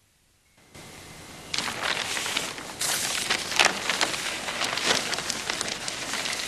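Dense crackling, rustling noise that starts faintly about a second in and turns loud about a second and a half in, made of many small irregular crackles.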